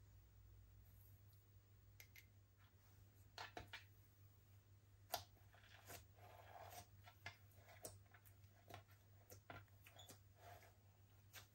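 Faint sticky clicks and soft squelches of slime being handled and mixed by hand, with one sharper pop about five seconds in, over a low steady hum.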